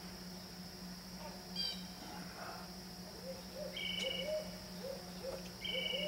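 An owl gives a series of short, low hoots through the second half, while a songbird whistles a clear two-note call twice and a quick run of high notes about a second and a half in. A steady high drone and a low hum run underneath.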